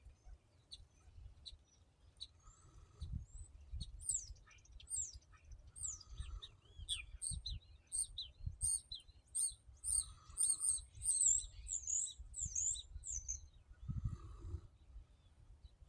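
Small birds chirping in many quick high chirps and short slurred notes, busiest in the second half. Beneath them, a faint low rumble and a soft breath-like sound about every four seconds, which fits a sleeping dog's quiet snoring.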